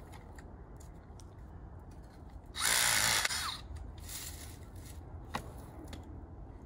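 Cordless drill spinning an auger bit into garden soil: one loud run of about a second, a little over a third of the way in, then a fainter, shorter spin just after.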